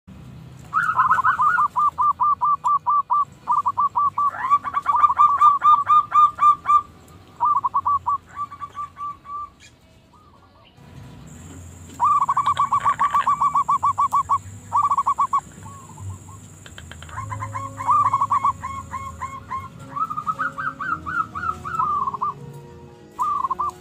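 Zebra doves (perkutut) calling in rapid trains of short cooing notes, about six or seven a second, in bursts of one to three seconds, with two birds overlapping at times. A steady high whine runs through the middle.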